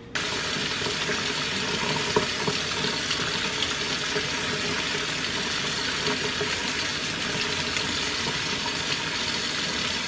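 Kitchen faucet turned on and running steadily into a stainless steel sink, a stream of water splashing as soapy hands are washed under it.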